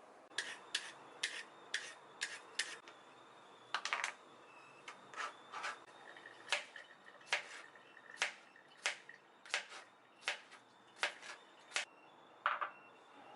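A series of sharp, light clicks or taps, roughly two a second, with a short break about three seconds in.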